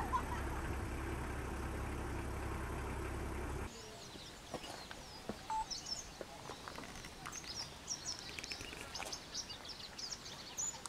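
A steady low rumble stops abruptly about four seconds in, leaving quiet rural ambience in which many small birds chirp and twitter, high and quick.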